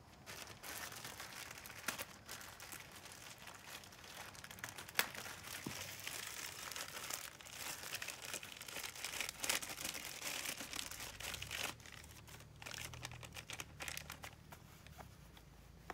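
Packaging for a new fuel pump being handled and opened, crinkling and tearing, with a few sharp snaps.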